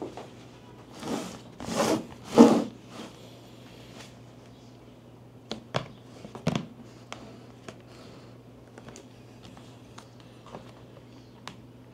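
Drone packaging being handled: three short rasping swells, like a zip or tearing wrap, about a second in, then scattered clicks and taps of parts being set down, over a faint steady hum.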